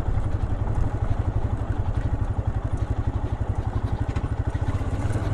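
Royal Enfield Himalayan BS6's single-cylinder engine running at low revs on a trail, with a steady, evenly pulsing rumble.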